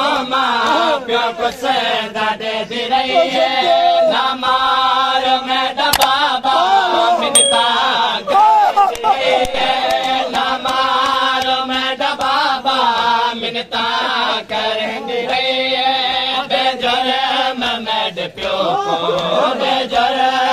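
A group of men chanting a noha, a Muharram lament for Karbala, in a slow, drawn-out sung melody.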